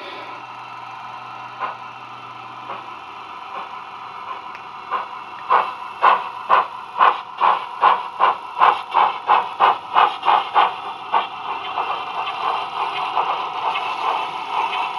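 Steam-locomotive exhaust chuffs from a DCC sound decoder with Tower Models sound, played through the small speakers of a model Hudswell Clarke saddle tank. A soft hiss comes first. About five seconds in, sharp chuffs start at roughly two a second and slowly quicken, then merge into a faster, denser chuffing near the end as the locomotive picks up speed.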